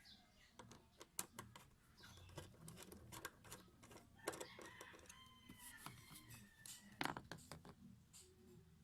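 Faint, scattered clicks and knocks of tools and loose seat hardware being handled inside a car, the sharpest about 7 s in. A faint drawn-out pitched sound runs in the background from about 4 to 7 s.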